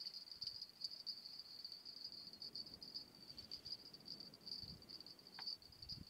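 Insects chirring in the grass: a faint, steady, high, pulsing buzz, with a faint low rumble midway.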